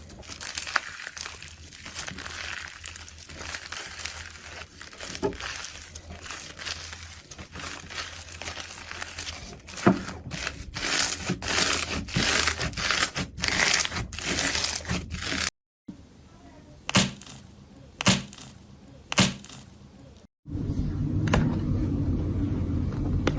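Slime being squeezed, stretched and pressed by hand, giving steady crackling and crinkling with sharp pops and snaps. Two brief silent breaks cut between clips, and after the second the texture turns lower and fuller.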